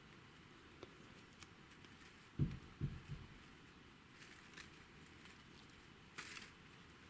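Faint handling sounds of floral tape being wrapped around wire branch stems: soft rustles and small clicks, with two low thumps close together about two and a half seconds in.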